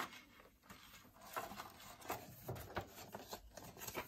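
Folded paper CD booklet rustling as it is handled and lifted off a plastic jewel case, in a string of short crinkles and light clicks.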